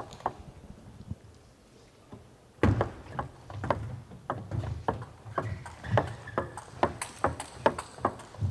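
Table tennis rally: the ball clicks sharply off the bats and the table in a quick, irregular run of hits and bounces, starting about two and a half seconds in after a quiet start.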